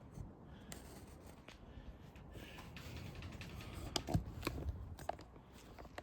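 Faint handling noises of tools and engine parts, with a few light clicks and knocks about four to five seconds in.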